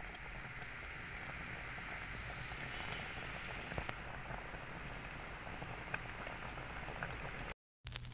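Creamy chicken stew simmering in a stainless steel pot, with a faint steady bubbling and a few small ticks. The sound stops shortly before the end.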